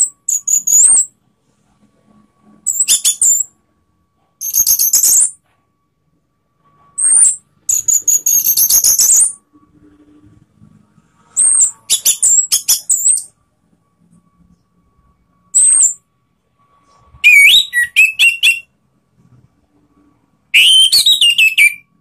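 Orange-headed thrush singing in short, loud phrases of high whistled and rapidly warbled notes, about eight of them separated by pauses of a second or two; the last two phrases near the end are pitched lower.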